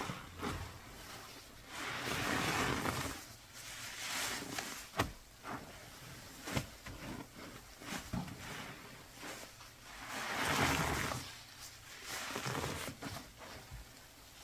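Cleaning paste being worked by hand in a container: swishing, scraping strokes about two seconds in, around four seconds and again near ten seconds, with sharp clicks and taps between them.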